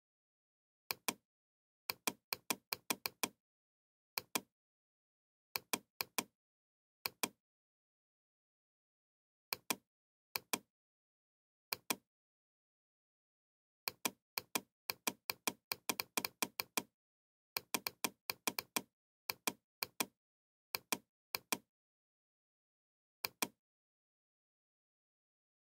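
Computer mouse clicking: sharp single clicks and quick runs of clicks, often in pairs, with complete silence between them.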